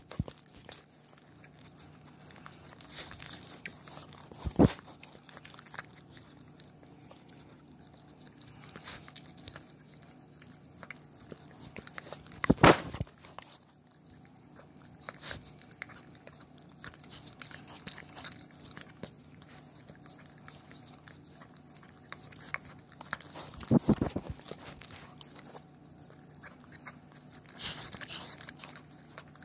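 A puppy licking peanut butter off the camera right at the microphone: a run of wet licking and smacking, with three loud bumps against the camera, about five, thirteen and twenty-four seconds in.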